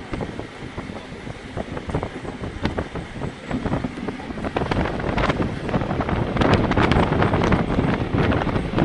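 Passenger train running along the track, heard from an open carriage window, with irregular clicks and rattles and wind buffeting the microphone; the noise grows louder about halfway through.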